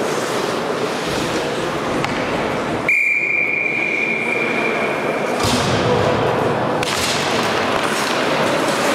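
Ice hockey game ambience: a steady wash of rink noise from skates, sticks and spectators. About three seconds in, a single steady high whistle-like tone sounds for about two and a half seconds.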